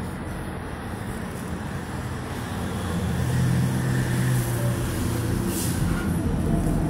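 Street traffic: a motor vehicle's engine hum grows louder about halfway through, over steady road noise.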